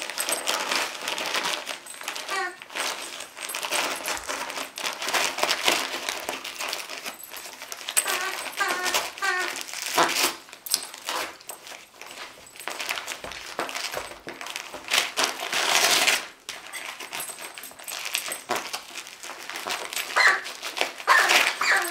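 Wrapping paper crinkling and tearing as a Siberian husky rips open a wrapped present with its teeth and paws, in uneven bursts of rustling.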